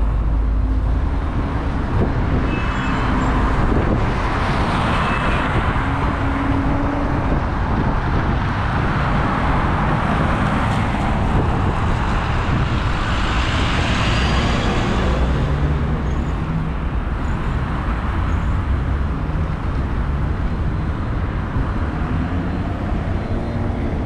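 Road traffic at a city intersection: cars and a bus driving past close by, with a steady low engine rumble and tyre noise that swells twice as vehicles go by, about five seconds in and again around fourteen seconds.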